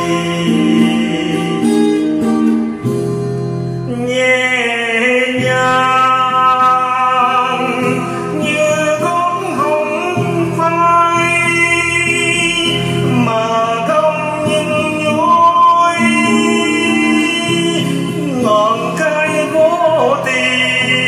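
A Vietnamese song: a solo voice singing a melodic line over acoustic guitar accompaniment.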